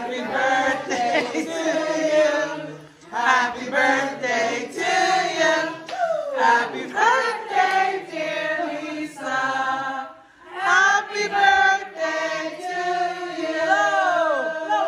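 A group of people singing together, with several held notes and short breaks about three seconds and ten seconds in.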